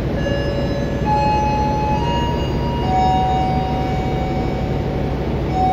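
Steady low rumble of trains at a railway station platform. A slow tune of long held notes, changing pitch every second or two, runs over it.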